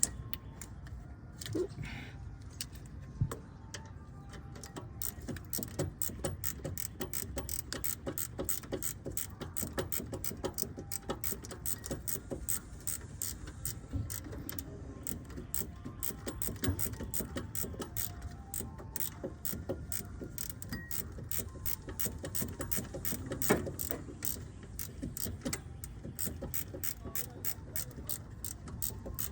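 Ratchet wrench clicking in quick, steady strokes as a bolt is run back in.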